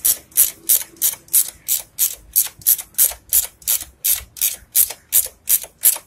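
Ratchet wrench being worked back and forth on a motorcycle's rear chain adjuster, giving short bursts of clicking about three times a second as the chain is slowly drawn tight.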